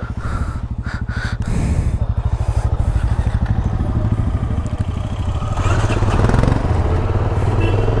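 Motorcycle engine running while riding, with a fast, even exhaust beat. It grows louder about a second and a half in and again past the middle.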